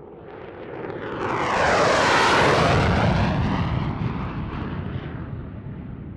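F-16 fighter (QF-16 target drone) jet engine on a low flyby: the roar swells to a peak about two seconds in, its pitch sweeping downward as the jet passes, then fades away.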